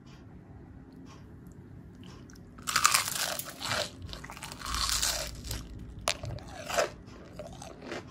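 Someone biting into and chewing a crispy batter-fried eggplant fritter: loud crunching in several bursts, starting about two and a half seconds in, with a couple of sharper crackles near the end.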